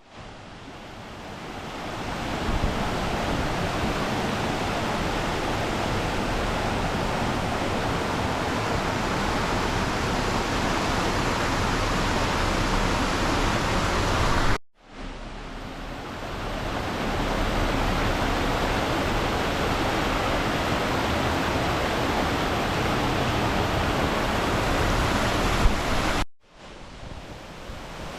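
Steady rushing of a mountain creek's water, broken by two abrupt cuts, each new take fading back in.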